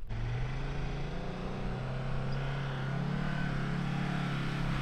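Four-wheel-drive ute's engine running steadily under load on a sand track, its pitch rising a little past the middle.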